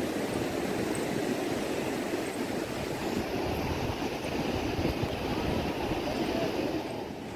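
Steady rushing noise of surf along a sandy beach, mixed with wind buffeting the microphone.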